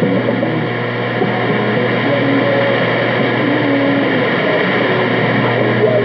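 Shortwave AM broadcast heard through an Icom IC-R75 communications receiver: steady static and noise, with faint fragments of the station's program audio beneath it and a steady low hum.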